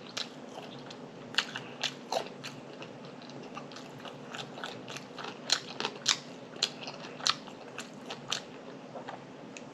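Close-miked chewing of crunchy food: a run of sharp crunches and crackles through the mouthful, over a faint steady hum.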